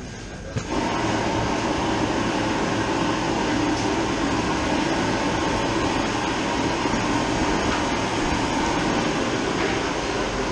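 Steady rushing, machine-like noise that comes on suddenly about a second in and holds even throughout.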